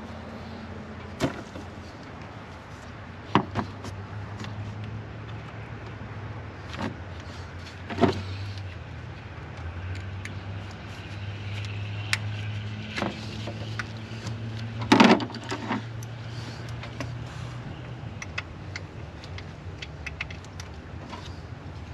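Hand tools and metal parts clinking during engine work: scattered sharp clicks and knocks, the loudest a short clatter about fifteen seconds in. A low steady hum runs underneath through most of the stretch.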